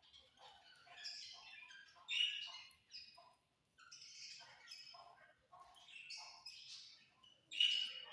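Budgerigars chirping and chattering in quick, warbling bursts, with a louder squawk about two seconds in and another near the end.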